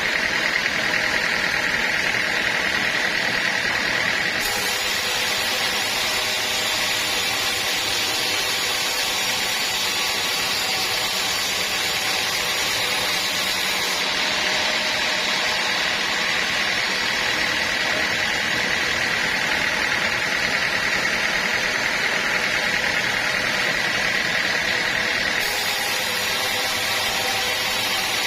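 Sawmill saw running steadily, with a constant high whine over the machinery noise.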